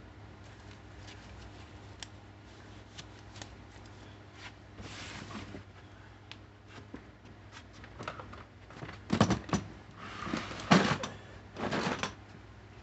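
Hand handling noises during bike-part work. Light scattered clicks come first, then bursts of rustling and small knocks from about eight seconds in.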